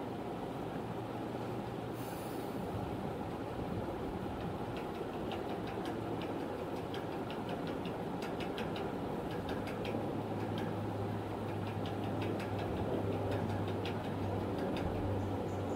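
Steady rumbling background noise with a low hum that swells about ten seconds in. From about five seconds in there is a run of short, irregular scratchy strokes: a pen writing on paper.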